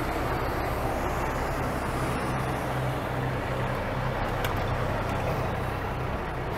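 Six-cylinder diesel engine of a 1983 Mack CF611 fire engine idling steadily.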